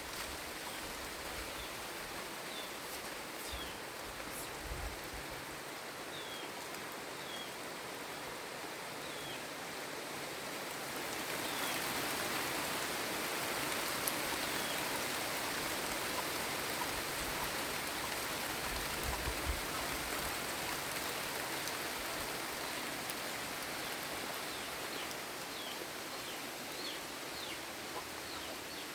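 Steady hiss of tropical rain falling, swelling louder about eleven seconds in, with a few faint, short, high bird chirps over it.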